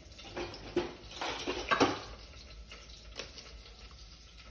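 Light knocks, clicks and scrapes of a plastic seasoning tub and kitchen utensils being handled, with a denser, louder cluster about a second and a half in.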